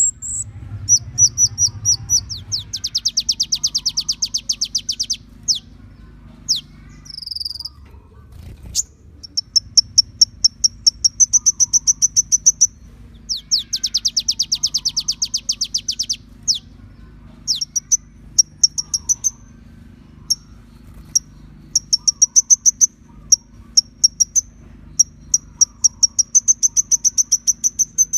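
Kolibri ninja sunbird singing a high song in phrases: runs of sharp chirps that speed up into fast buzzy trills, with short pauses between phrases. A faint low hum runs underneath.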